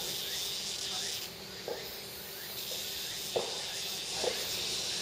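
Outdoor ambience: a steady high hiss, with three short sharp knocks or clicks spread through it.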